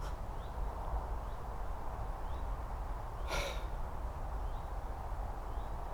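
Outdoor ambience: a steady low rumble of wind on the microphone, with faint short chirps repeating about once a second. A single brief breath-like hiss comes a little over three seconds in.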